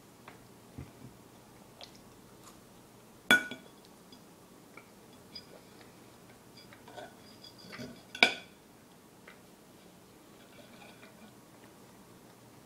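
Metal fork and knife clinking and scraping on a ceramic plate while eating: two sharp, ringing clinks, about three and eight seconds in, with lighter taps between.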